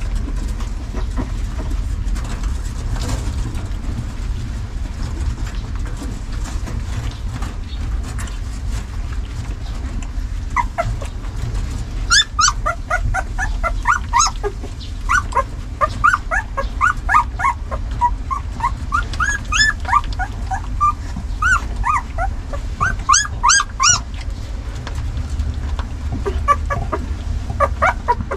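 Nursing puppies giving many short, high-pitched squeals and whimpers as they jostle for teats. The calls start a little before halfway, come thick and fast for about twelve seconds, and return briefly near the end. A steady low rumble runs underneath.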